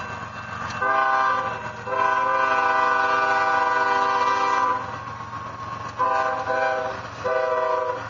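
CSX GE ES40DC locomotive's air horn blowing for the grade crossing: a blast about a second in that runs straight into a long one of about three seconds, then two shorter blasts near the end. The locomotive's engine and wheels rumble underneath as it passes close by.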